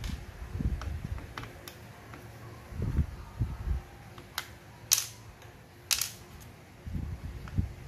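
A screwdriver and small screws clicking and tapping as a small circuit board is unscrewed from inside an opened Sony CFS-1133S cassette boombox. Scattered light clicks and soft handling knocks, with two sharper clicks about five and six seconds in.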